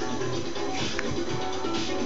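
Music with a steady beat playing for dancing.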